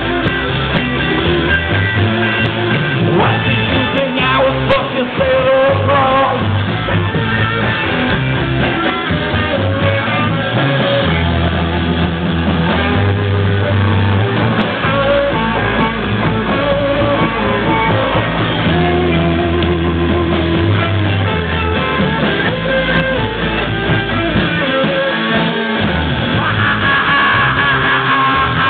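Live rock band playing: electric guitars and a low bass line under a singer's voice, loud and continuous.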